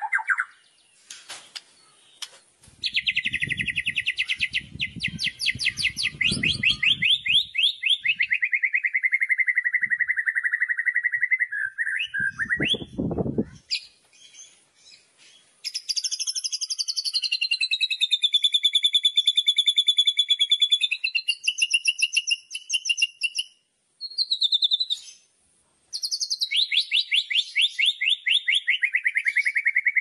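White-rumped shama (murai batu) giving loud kretekan rattling calls: fast series of repeated notes that slide down in pitch, broken by short pauses, with a longer buzzing trill that rises and falls in the middle.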